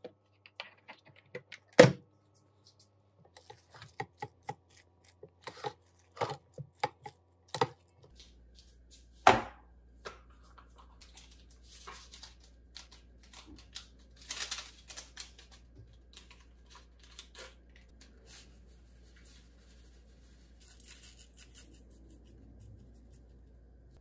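Clicks and knocks from handling an electric rice cooker and its inner pot, with two loud sharp knocks about two and nine seconds in. Then quieter scraping and tapping of a rice paddle in the pot of cooked rice.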